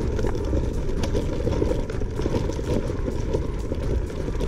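Langfeite L8S electric scooter riding over rough off-road ground: a steady low rumble with scattered clicks and knocks from the scooter and its suspension, and a faint steady high tone.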